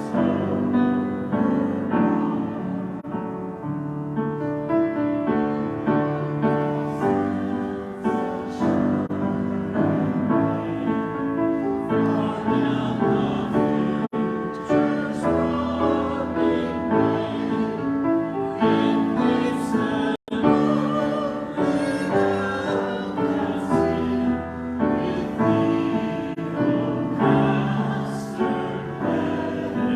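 A hymn sung with piano accompaniment, the voices holding long, wavering notes. The sound cuts out for a split second about twenty seconds in.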